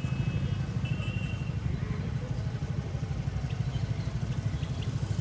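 A motorbike engine running steadily, a low throb that does not let up.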